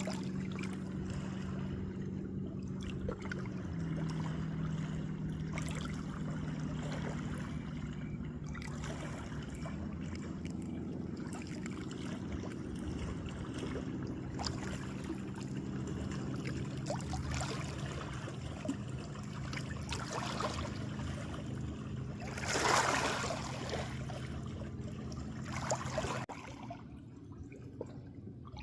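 Water trickling and splashing over a steady low hum that cuts off suddenly near the end, with one louder splash shortly before it stops.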